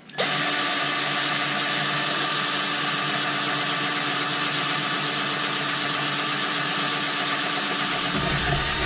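Cordless drill running steadily at speed, drilling a pilot hole through a hydrofoil and the cavitation plate of a Suzuki 2.5 hp outboard. The drill starts just after the opening and stops near the end.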